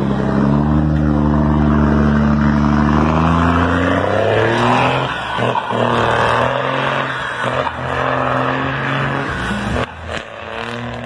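Volkswagen Constellation 24.250 truck's diesel engine pulling away under load, its pitch rising slowly for about four seconds. After that the clear engine note fades into a duller running sound.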